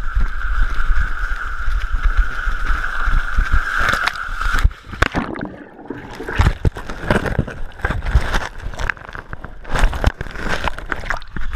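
Body sliding down a wet plastic-sheet water slide: a steady rushing hiss, then about five seconds in a plunge into muddy water, after which the sound turns to sloshing and gurgling with irregular knocks and splashes.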